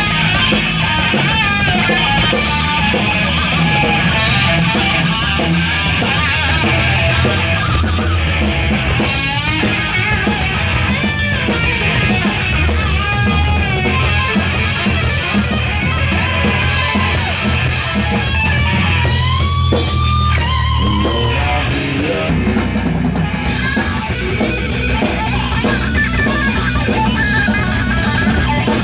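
Distorted heavy-metal electric guitar solo on a Dean guitar, played loud through stage amplifiers: fast note runs with rising string bends about two-thirds through, over low sustained notes that drop away soon after.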